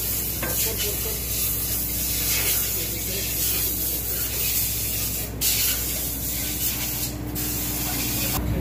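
Steady engine-room machinery noise: a low hum under a strong high hiss, with two short, sharper bursts of hiss about five and seven seconds in.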